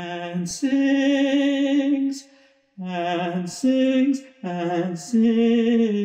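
Choir singing a slow, sustained phrase in harmony with vibrato. Held notes are broken by a short pause a little after two seconds and another near four and a half seconds.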